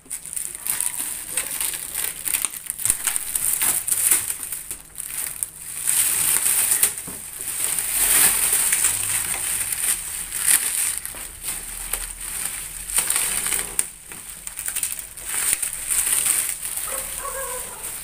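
Plastic wrap being pulled and crumpled off a new air cooler, with its cardboard packaging rustling: a continuous crinkling and crackling that rises and falls as the wrapping is handled.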